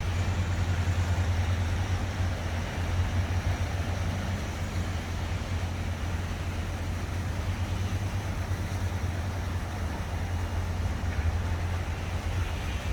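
Outdoor city ambience: the even hiss of water fountains over a steady low hum of distant city noise and construction works.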